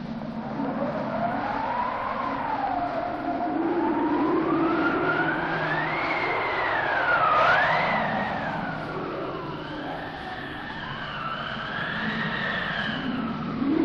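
Mountain wind howling: a rushing noise with a whistling tone that slowly rises and falls in pitch, gusting loudest about halfway through. A second, higher whistle joins in over the last few seconds.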